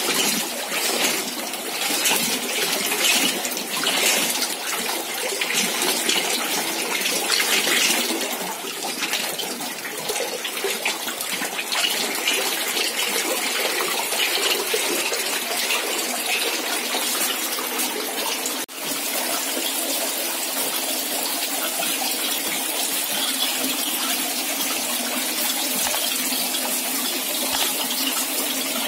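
Running water pouring into a trout hatchery trough, a steady rush of splashing water that is more uneven in the first several seconds and briefly drops out about two-thirds of the way in.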